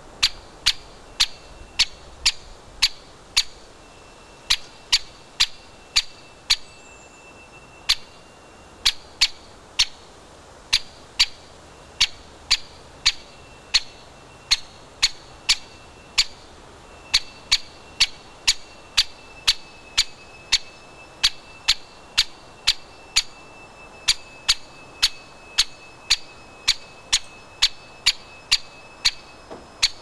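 A woodpecker, thought to be a white-backed woodpecker, pecking at suet balls in a wire-mesh cage feeder. Its beak strikes come as sharp taps at about one to two a second, often in quick pairs.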